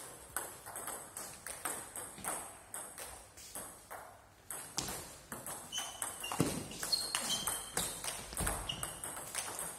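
Table tennis rally: the ball clicking off bats and table in quick, irregular succession, echoing in a large hall. A few short high squeaks and a dull thump come in the second half.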